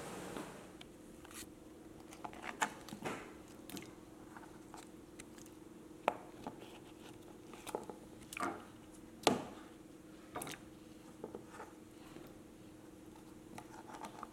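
Kitchen food-prep handling: cut potato slices being moved about and placed in a ceramic bowl, with scattered light clicks and knocks, the sharpest about nine seconds in, over a faint steady hum.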